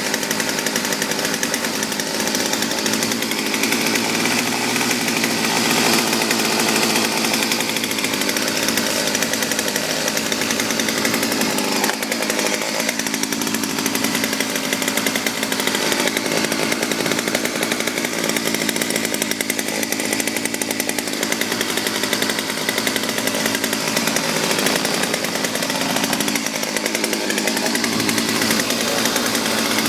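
Poulan 1950 LE 33cc two-stroke chainsaw running steadily at a near-constant level.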